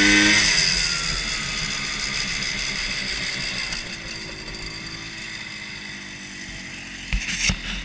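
Rotax 250cc two-stroke snowmobile engine on a racing lawn mower, revving high and then falling away in pitch and level over a few seconds. A few sharp knocks sound near the end.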